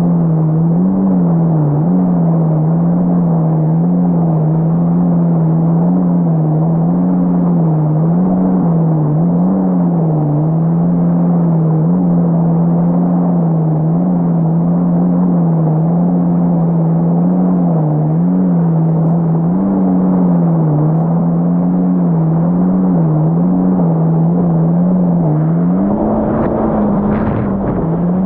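Supercharged four-cylinder engine of a Yamaha GP1800R SVHO jet ski running at speed on open water, a steady drone whose pitch wavers up and down every second or two. A brief rush of hiss near the end.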